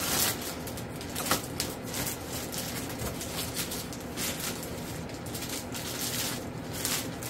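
Clear plastic bag crinkling and rustling as a foam wing half is pulled out of it: an irregular run of crackles, with a sharper snap about a second in.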